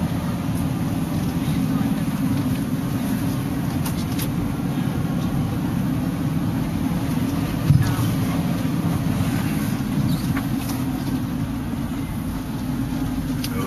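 Steady low rumble of a van's engine and tyres heard from inside the cabin while driving a winding paved mountain road, with one brief thump about eight seconds in.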